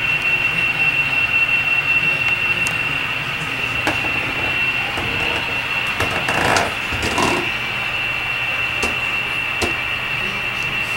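HO-scale model trains running on a layout: a steady high-pitched whine with a few light clicks, and a brief louder rush of noise about six seconds in.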